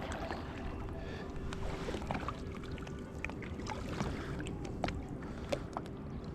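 Kayak paddling on calm water: light paddle splashes and scattered drips and ticks over a steady wash of water and wind noise.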